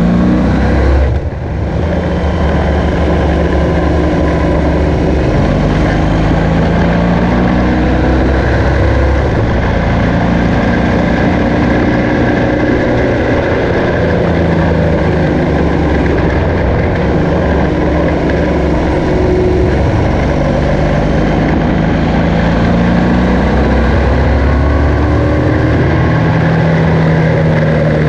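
BMW R1200GS's boxer-twin engine running under way, its pitch rising and falling again and again as it revs and changes gear, with a brief drop about a second in. Steady wind and road noise run under it.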